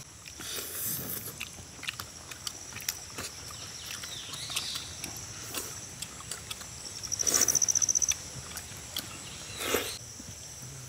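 Close-up slurping, sucking and lip-smacking as cooked tuna bones are eaten by hand, with scattered small clicks. A short, rapid high-pitched trill sounds about two-thirds of the way through.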